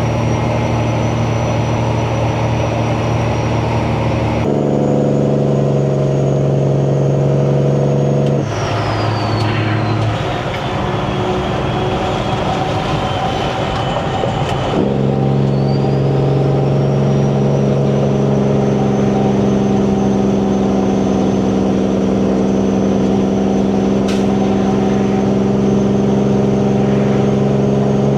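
Semi truck's diesel engine with 8-inch stacks running under power, with a high turbo whistle above it. The note shifts about four seconds in. Around eight seconds the engine drops back off power and the turbo whistle falls in pitch. About six seconds later the engine pulls again and the whistle rises as the turbo spools back up.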